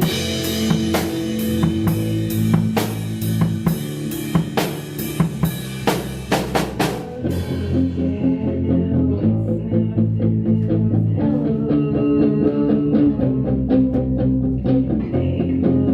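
Live grunge rock band playing instrumentally: drum kit hitting a steady beat over bass and electric guitar. About seven and a half seconds in the drums drop out, leaving the guitar and bass to carry on.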